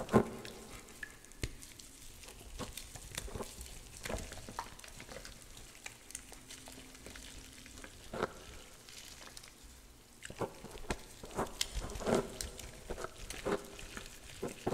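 Water-soaked gym chalk blocks crumbled and squeezed between fingers in a metal bowl: irregular crackles and soft crunches, coming thicker and faster from about ten seconds in.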